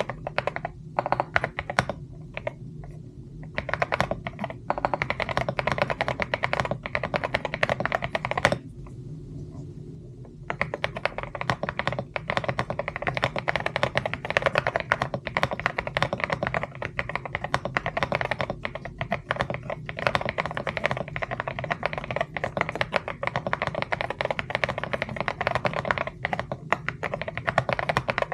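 Fast typing on a mechanical keyboard: a dense, rapid run of key clacks. There are short pauses about two seconds in and about nine seconds in.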